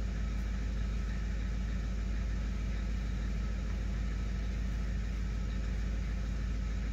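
Isuzu box truck's 4BD1T four-cylinder diesel idling steadily after its cold start.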